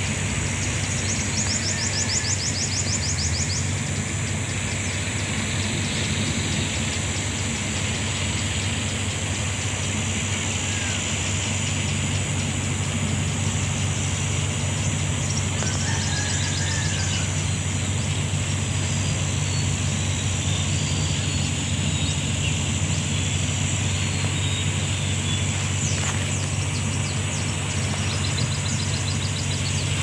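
Forest ambience: a steady high insect buzz over a steady low hum, with a few brief chirps and short rapid trills, one near the start and one near the end.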